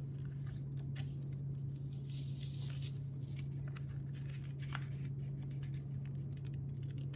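Origami paper rustling and crinkling as it is folded and creased by hand against a tabletop, in many short crisp rustles, over a steady low hum.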